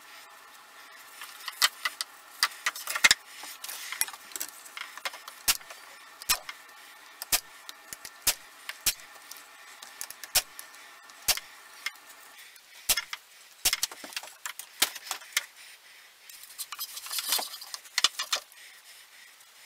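Irregular sharp clicks and clinks of small hard objects being handled, some single and some in quick clusters, over a faint steady hum that stops about twelve seconds in.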